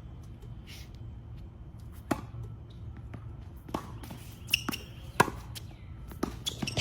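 Tennis balls being hit during a doubles rally: about five sharp pocks of ball on racquet and court, irregularly spaced a second or so apart.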